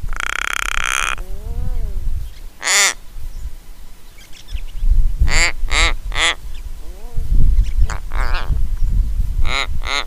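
Little raven giving a run of creaking calls: a long harsh one at the start, then short calls singly and in quick runs of two or three, some wavering up and down in pitch.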